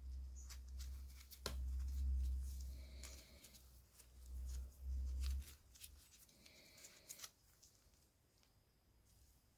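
Hands handling packaging: scattered clicks, short rustles and low handling bumps, busier in the first half and thinning out to a few light clicks.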